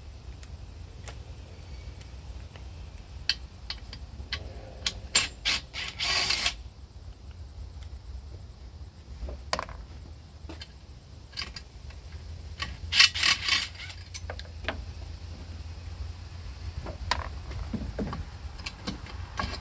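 Ratchet wrench clicking in short runs as the 10 mm muffler fasteners are worked loose on a Husqvarna 394XP chainsaw, with scattered metal clicks and taps from handling the parts, over a steady low hum.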